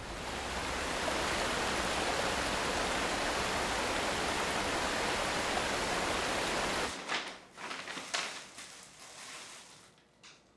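A loud, steady rushing hiss that cuts off abruptly about seven seconds in. It is followed by a paper grocery bag rustling and a few light knocks as groceries are unpacked onto a table.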